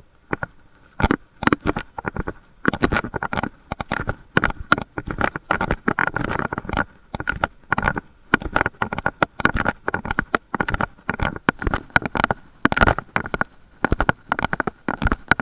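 Rough, crackling microphone noise in rapid, irregular bursts, with a faint steady tone underneath.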